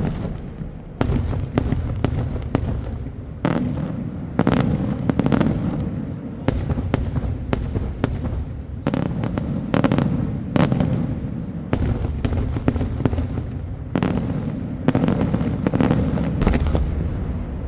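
Daytime fireworks display: a rapid, irregular barrage of loud shell bursts, nearly two a second, each report trailing into a low rolling echo.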